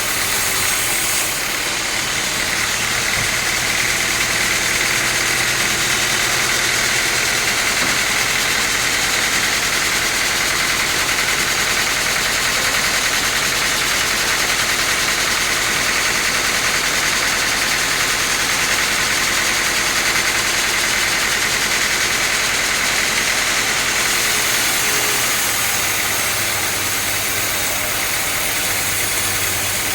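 Sawmill saw running steadily while cutting teak wood, with a sharper high hiss from about a second in until near the end, when it eases off.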